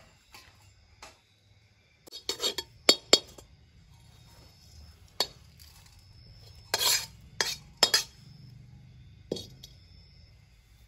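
Metal spatula scraping and knocking against a steel kadhai, clearing out cooked rice-flour dough that had stuck to the pan and was loosened by setting it back on the fire. Irregular sharp clinks and short scrapes of steel on steel, some in quick bunches, as the dough is knocked off onto a steel plate.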